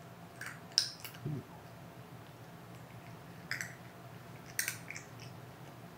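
A cat eating from a ceramic bowl: a few separate crisp clicks and crunches of chewing, in three small clusters with quiet gaps between them.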